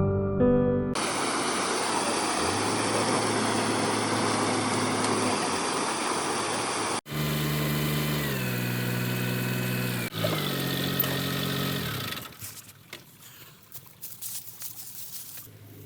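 Vehicle engine running through abrupt cuts: first a noisy rumble, then an engine whose pitch drops in two steps, falling away to faint crackling near the end.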